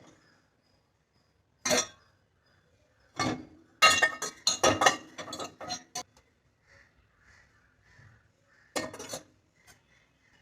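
Pans and cooking vessels clattering and clinking against the dishwasher's lower rack as they are set in: single knocks about two and three seconds in, a quick run of knocks between about four and six seconds, and another clatter near the end.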